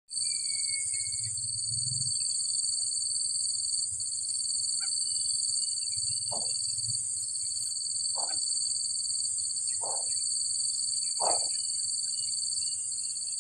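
Steady, high-pitched chorus of insects, shrilling at two pitches without a break. In the second half, some animal gives four short calls, about two seconds apart.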